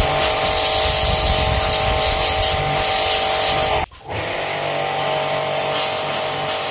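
Cazar KS-CW140 2400-watt electric pressure washer running, its motor giving a steady whine under the hiss of the high-pressure water jet blasting into a brick. The sound cuts out for an instant about four seconds in, then carries on.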